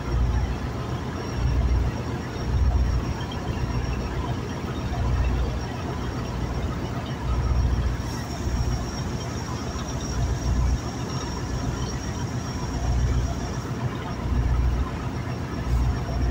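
Wind buffeting the microphone in irregular gusts over a steady rushing noise, with a faint high steady whine.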